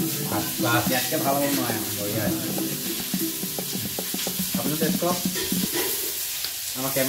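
Men talking, with background music and a steady hiss underneath.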